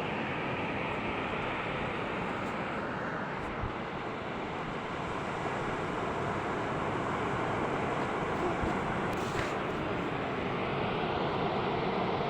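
Sea waves washing on a beach, a steady rushing that swells slightly toward the end.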